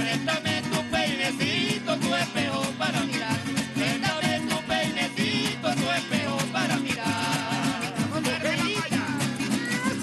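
Venezuelan string ensemble of cuatros and small guitars strummed in a brisk, steady dance rhythm, with a wavering melody line above.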